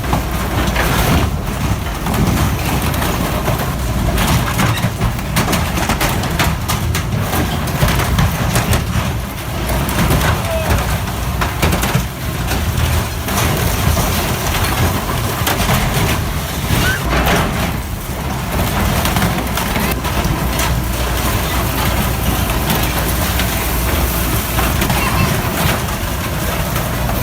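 A diesel heavy machine running steadily under load while it crushes and tears scrap metal, with irregular crunching, cracking and clanking throughout.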